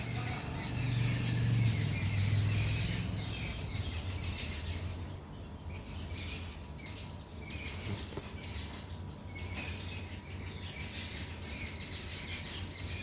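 Dawn chorus of many small birds chirping and twittering all around, in quick repeated calls that thin out briefly about halfway through. A low steady hum runs underneath, strongest in the first couple of seconds.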